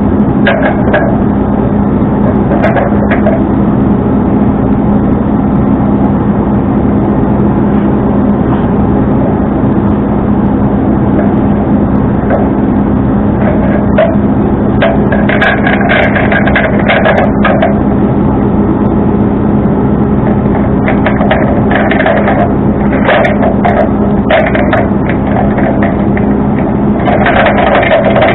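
Tow truck's engine running with a steady low drone, with spells of rattling and clicking over it a few times.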